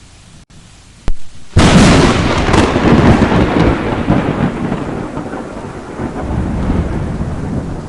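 A thunderclap breaks in suddenly about a second and a half in after a quiet moment, then rumbles on and slowly dies away.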